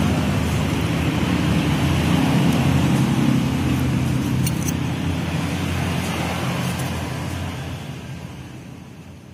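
Steady rumble of running motor vehicles and traffic, with a few light clicks about four and a half seconds in, fading out near the end.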